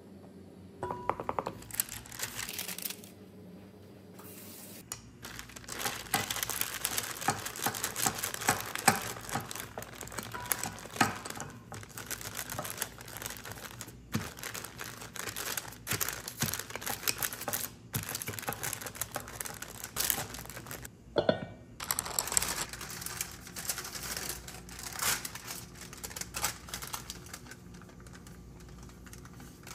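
Parchment paper crinkling and rustling under a wooden rolling pin as dough is rolled out between the sheets: a dense, irregular run of small crackles, pausing briefly once and dying down near the end.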